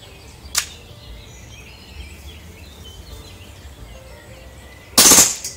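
Action Army AAP-01 gas-blowback airsoft pistol firing a short full-auto burst near the end, the shots run together into one loud rattle lasting under half a second. A single sharp click comes about half a second in. Faint bird chirps sit in the background.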